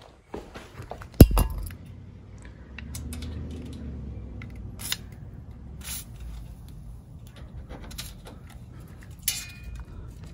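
A sharp knock about a second in, then a few short hissing bursts from an aerosol can of penetrating oil sprayed through its red straw onto old, crusted bolts to loosen them before removal.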